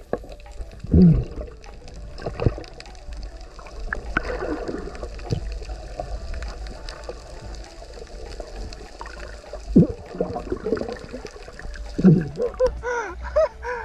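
Underwater recording: water gurgling and sloshing past the camera, with several short louder gurgles, and near the end a quick run of bubbling as a diver exhales a stream of bubbles.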